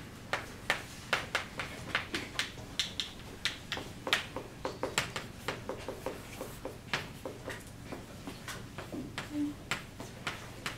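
Chalk writing on a chalkboard: a steady run of sharp taps and short scratchy strokes, about three or four a second, as a formula is written out.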